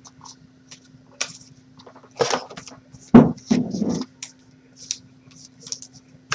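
Trading cards and card packs being handled on a tabletop: light clicks, taps and rustles, with a sharper knock about three seconds in, over a faint steady hum.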